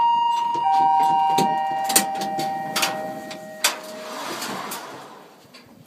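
Electronic chime in an aerial tramway cabin: three falling tones enter one after another and are held, then cut off together with a click about three and a half seconds in, followed by scattered clicks and a brief hiss. It signals the cabin's doors opening on arrival at the station.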